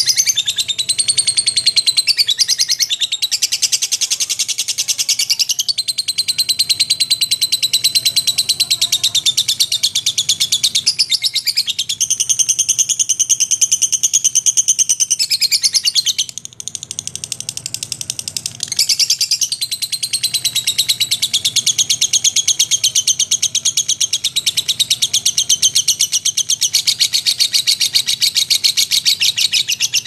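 A lovebird's ngekek: a long, fast, unbroken chattering trill, high-pitched and shifting in pitch every few seconds, with one short break about halfway through.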